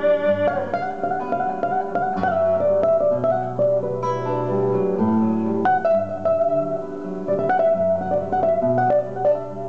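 Two acoustic guitars playing an instrumental passage of a vidala as a duet. A held note ends about half a second in, and quick picked melody notes then run over moving bass notes.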